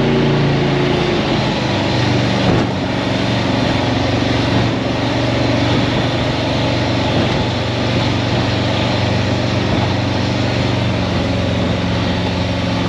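Baja speedboat's engine running steadily at speed, a continuous low drone over the rush of wind and water.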